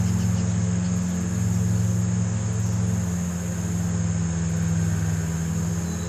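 Insects trilling steadily in a high, continuous tone over a constant low hum.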